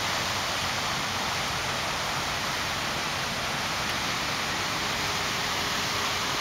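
Steady rush of falling and splashing water from a large fountain's jets, an even hiss with no breaks.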